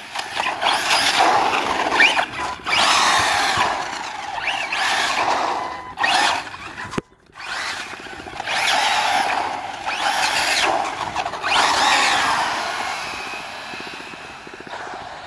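Brushless electric motor of a RedCat Mirage 1/8-scale 4x4 RC buggy whining up and down in pitch with the throttle, together with tyre noise, in several bursts of acceleration. The sound breaks off briefly about seven seconds in.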